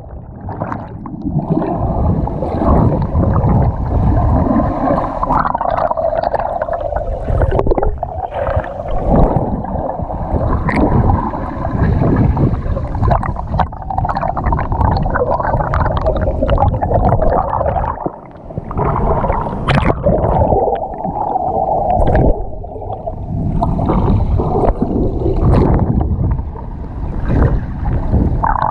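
Water heard underwater: a muffled, churning rumble with gurgling and bubbling and short knocks as the swimmer moves.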